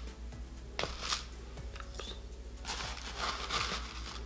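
Plastic scoop scraping through dry loose-leaf tea in a resealable pouch, with the pouch crinkling, in two short bursts of rustling, about a second in and again around three seconds in.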